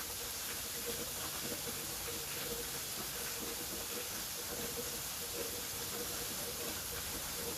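Waterfall: the steady rushing of falling water, unbroken and even in level.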